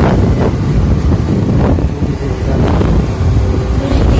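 Wind buffeting the microphone of a phone carried on a moving scooter, a loud, steady low rush, with the scooter running beneath it.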